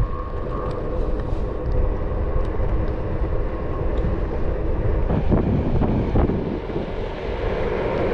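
Wind buffeting the action camera's microphone while riding a Onewheel GT electric board along pavement, with a faint steady whine in the first five seconds or so.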